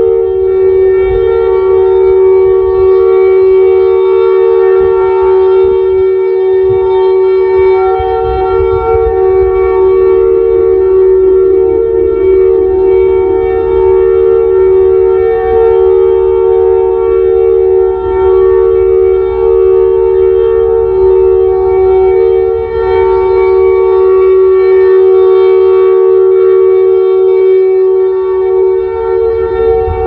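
Siratone EOWS 612 electronic siren sounding its steady Alert signal, digitally pitched down by half: two close, loud tones with many overtones, held level without rising or falling.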